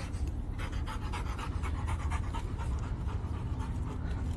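A dog panting in quick, short breaths, over a steady low rumble.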